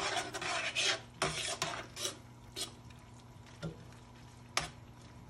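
A utensil stirring and scraping through a thick cream sauce with sausage and vegetables in a non-stick pan: a run of wet scrapes for the first two to three seconds, then quieter with a couple of light knocks.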